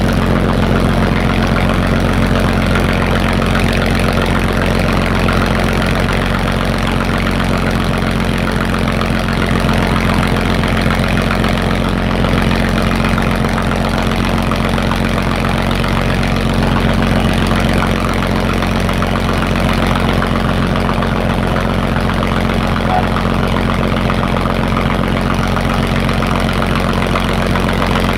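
A 1936 Buffalo fire engine's motor running steadily, driving its 1,000 gpm pump while it throws a water stream.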